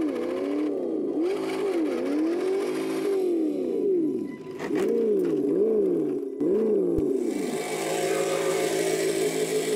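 Electric RC car motor whining, its pitch rising and falling over and over as the throttle is pumped, then winding down abruptly at about seven seconds.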